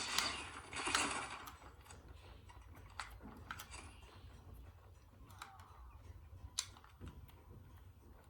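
Light scraping and scattered sharp clicks of small hard objects being handled, with a louder scrape in the first second and a few separate clicks after.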